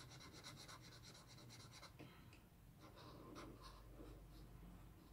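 Faint scratching of a fine-tip Crayola metallic felt marker on paper. Quick short strokes for about two seconds fill in a small square, then slower, sparser strokes trace a wavy line.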